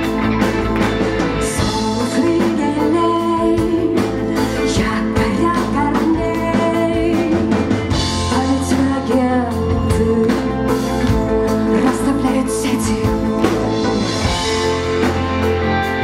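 Live rock band playing: electric guitar, bass guitar and drum kit, with a woman singing over them through the stage PA.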